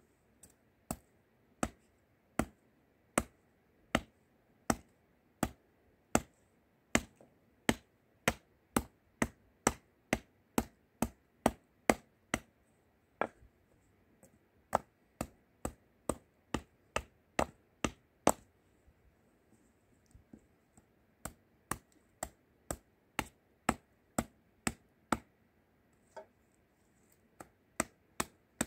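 Small hatchet chopping a green-wood spoon blank held upright on a wooden block, roughing out the spoon's shape: a steady run of sharp wooden chops, about one every second at first and quickening to about two a second, with brief pauses.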